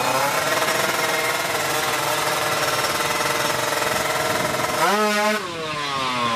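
Two-stroke single-cylinder engine of a Kawasaki Ninja 150 drag bike held at high revs with a steady buzz, then blipped sharply up and down about five seconds in and easing off in a slow falling pitch near the end.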